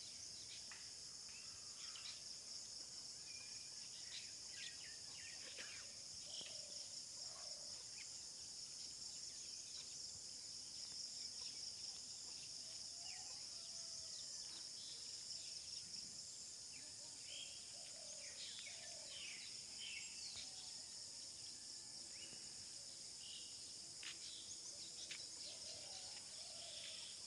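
Steady high-pitched drone of an insect chorus with scattered bird chirps and calls over it.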